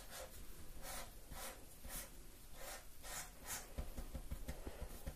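Felt-tip marker drawing on paper: faint short scratchy strokes, about two a second, followed by a few soft low knocks near the end.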